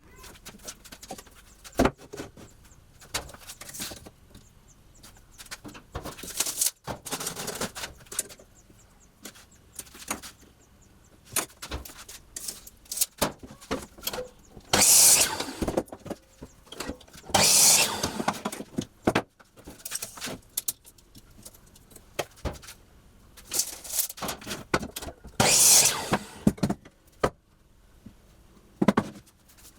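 Workshop handling sounds: irregular sharp clicks and knocks, with several bursts of hiss about a second long.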